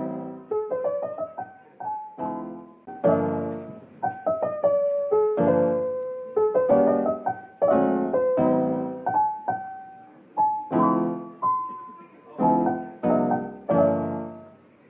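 Background piano music: notes and chords struck one after another, each left to ring and die away.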